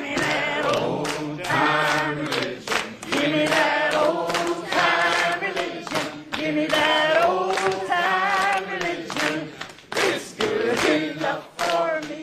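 A choir singing a gospel song, with hands clapping along on the beat.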